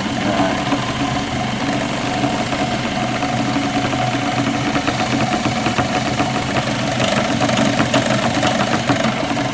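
A homemade wood lathe's motor running steadily with a hum, spinning a small wooden bowl during wax polishing. A fast, light ticking joins in over the second half.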